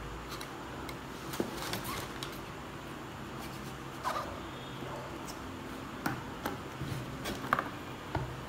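Cardboard packaging being handled as a camera box is opened: flaps and inner card folds rubbed and scraped, with scattered clicks and rustles, the sharpest about seven and a half seconds in.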